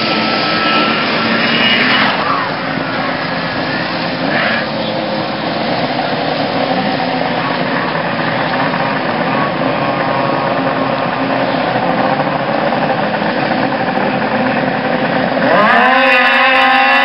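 Several snowmobile engines running, then about three-quarters of the way through they rev up sharply together with a steep rise in pitch and a jump in loudness as the sleds launch and skim across the water.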